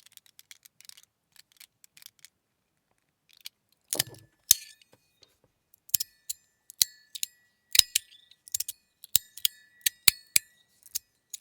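Sound Emperor metal fidget slider being snapped back and forth, its small tuning forks struck by each click: after a few faint handling ticks, sharp clacks start about four seconds in and come in quick succession from about six seconds, each leaving a ringing tone hanging after it. It is even louder with the small tuning forks fitted.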